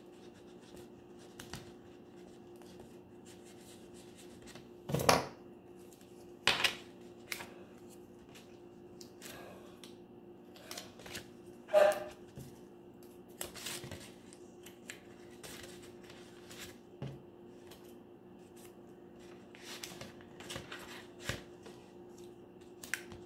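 Glue stick dabbing on a paper plate and small paper squares handled and pressed down, with soft scattered rustles and taps. A few louder sharp clicks come about five, six and a half and twelve seconds in, over a faint steady hum.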